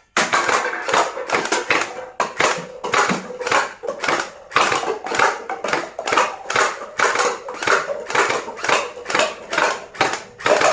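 Toy gun firing in a rapid, even series of shots, about three a second, over a faint steady tone.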